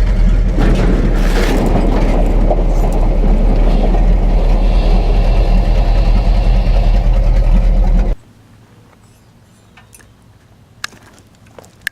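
1950s truck horns, wired to a battery, blaring in one long loud blast that cuts off abruptly about eight seconds in; a few faint clicks follow.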